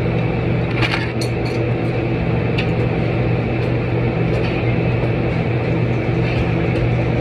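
A steady mechanical hum, with several light clinks about a second in and a few more scattered later.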